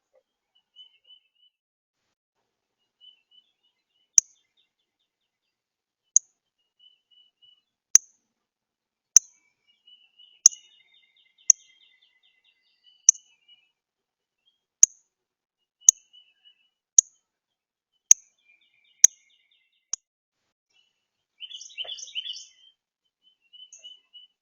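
Northern cardinal giving sharp, single chip calls, about a dozen at roughly one-second intervals, then a short burst of busier chirping near the end. Faint calls of other birds sound behind them.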